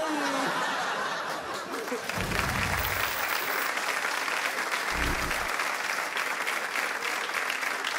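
Studio audience clapping, with a couple of low thuds about two and five seconds in.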